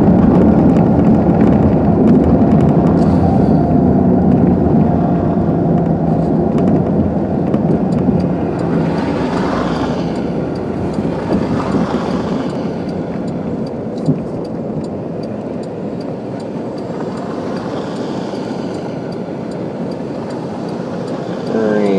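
Car driving on snow-covered roads, heard from inside the cabin: steady engine and tyre noise that eases off and grows quieter from about halfway through as the car slows.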